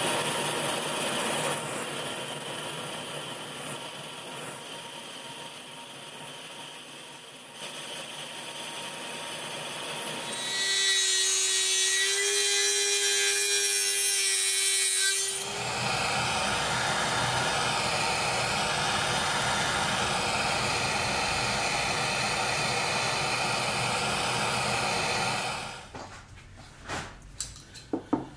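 Metal lathe turning cast-iron piston-ring stock: a steady cutting noise with a thin high whine over it. About ten seconds in it gives way to a rotary tool's cut-off disc whining at one steady pitch as it cuts the rings in a vise, followed by a longer stretch of rasping cutting noise and a few light knocks near the end.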